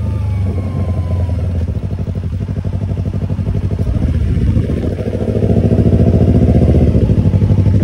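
Yamaha YZF-R25's parallel-twin engine running through an aftermarket Tiger exhaust, a low pulsing exhaust note that gets louder about five seconds in.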